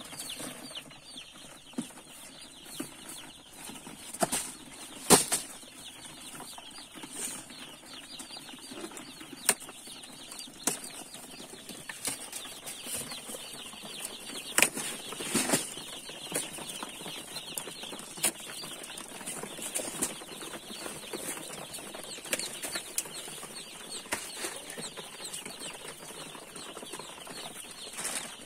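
A crowd of day-old broiler chicks peeping continuously, many short high cheeps overlapping. Scattered knocks and rustles break in now and then, the loudest about five seconds in.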